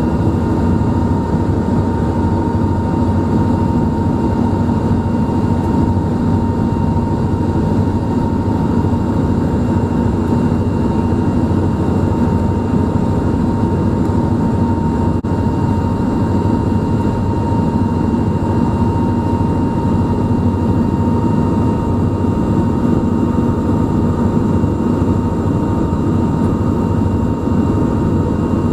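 Passenger ferry's engines running steadily, heard from on board: a constant loud drone with a steady high whine over it.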